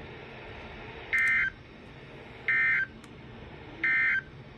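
Three short, evenly spaced bursts of SAME digital data tones, the raspy two-tone buzz of NOAA Weather Radio's Emergency Alert System coding, over a steady radio hiss. Short bursts sent three times right after a warning's repeated closing line are the end-of-message code that signs off an EAS alert.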